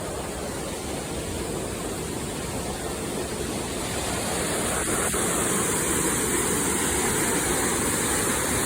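A steady rushing noise that grows slightly louder partway through.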